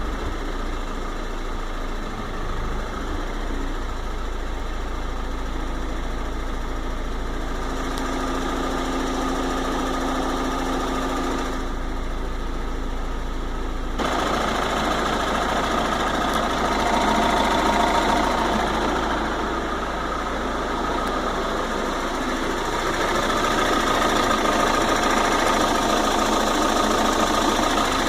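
VW Golf V 2.0 TDI PD four-cylinder unit-injector diesel running with the strange noise that the owner says comes on once the engine has been revved and is warm; its cause is unknown to him. The sound gets louder about halfway through and again in the last few seconds.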